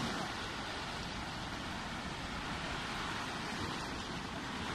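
Steady ocean surf washing over shoreline rocks, with wind rumbling on the microphone.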